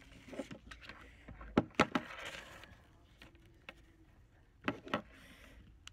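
Handling noises from a piece of cardboard and a small plastic part being worked at a table: two pairs of sharp clicks and taps about three seconds apart, each followed by a brief soft rustle.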